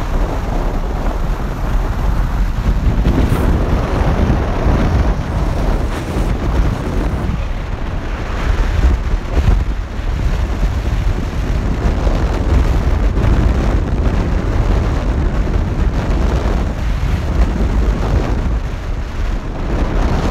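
Wind buffeting the microphone in a loud, steady rush with deep rumble, along with road noise from a moving car, recorded from the car's open window.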